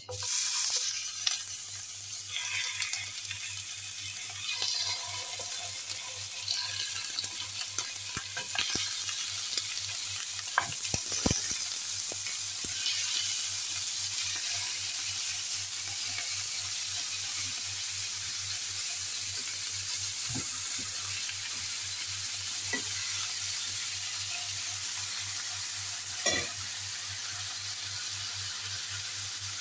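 Raw bone-in meat chops frying in butter in a hot nonstick pan: a steady sizzle that starts suddenly as the meat goes in. A few short knocks sound as more chops are laid into the pan.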